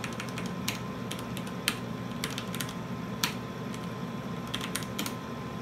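Keystrokes on a computer terminal keyboard: a dozen or so separate clicks at an uneven pace, over a steady machine hum.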